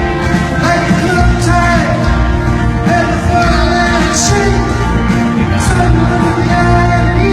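Rock band playing live in concert, with a sung or lead melodic line over full band accompaniment.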